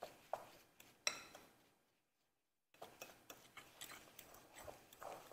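Fork clicking and scraping against a glass mixing bowl while stirring graham cracker crumbs with melted butter and sugar for a cheesecake crust. The clicks are faint and irregular, and they cut out completely for about a second near the middle.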